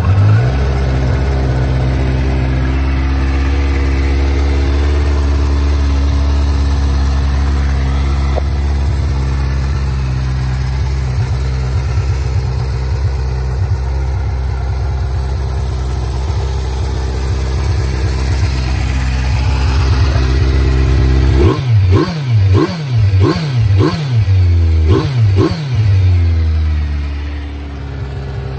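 2017 Kawasaki Z900's inline-four engine through an Akrapovic aftermarket exhaust, catching at the start and idling steadily for about twenty seconds. Then it is revved in a rapid string of short throttle blips, each rising and falling in pitch, before settling back to idle near the end.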